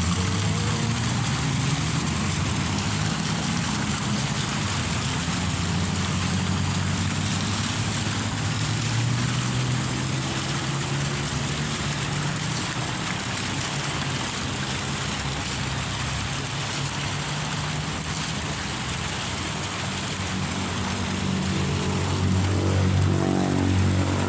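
Fountain running: a steady rush of spraying and falling water over a low, steady droning hum.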